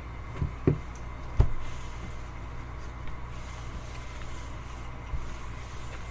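Three short knocks of objects being handled and set down in the first second and a half, then a steady low hum of room background.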